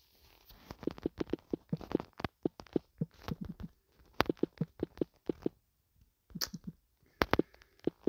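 Taps of a finger typing on a smartphone's touchscreen keyboard: a quick run of short clicks, several a second, then a pause and a few more taps near the end.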